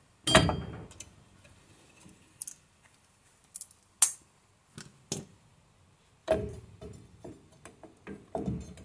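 Metal clanks and clicks of drum brake parts being handled as a brake shoe is worked off: a sharp clank with a brief metallic ring about a third of a second in, then scattered clicks and knocks, with a short flurry of them near the end.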